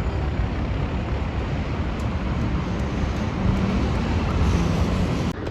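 Jet airliner engines, a steady low rumble that swells slightly about three and a half seconds in.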